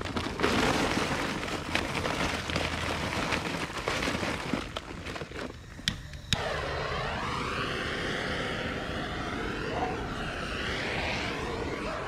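Scraping and clicking as charcoal briquettes are shifted about with tongs. About six seconds in, a handheld gas torch lights with a click and runs with a steady hissing roar, its tone sweeping up and down as the flame is played over the charcoal to light it.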